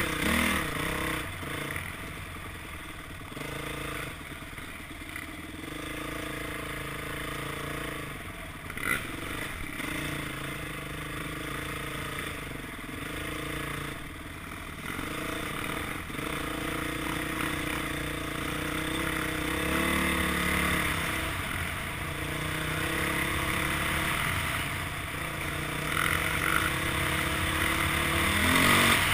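Dirt bike engine running under way on a trail, its pitch rising and falling with the throttle and climbing on a rev-up near the end.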